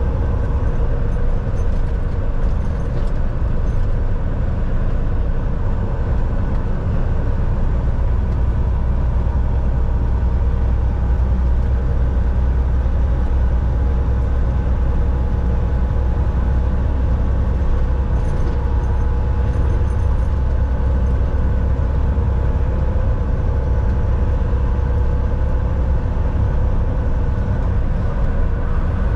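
Volvo VNL 760 semi-truck cruising: a steady low engine drone with road and tyre noise, and a faint steady whine above it.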